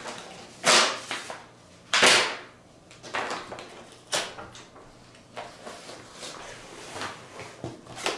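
Paper and thin card being handled: stiff sheets rustling and flapping in short swishes, the two loudest about one and two seconds in, with lighter rustles and taps after.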